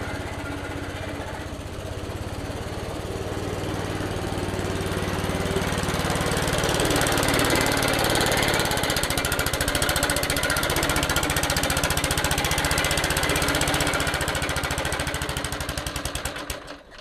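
Suffolk Punch 43S petrol lawnmower running and cutting grass, a steady fast-pulsing engine that gets louder a few seconds in. Near the end it falters and cuts out, starved of fuel.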